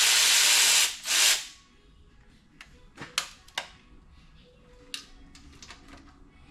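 A power tool runs in a steady, hissing burst that stops about a second in, then runs again briefly. After that come several light, sharp clicks and taps of parts being handled.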